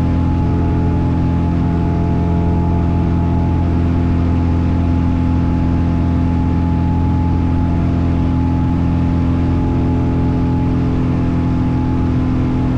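Cessna light aircraft's piston engine and propeller running at a steady drone, pitch and level holding constant.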